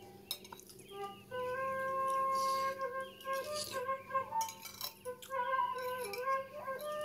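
Background music carrying a flute melody that moves in stepped notes, with a few light clinks of a metal spoon against a ceramic plate.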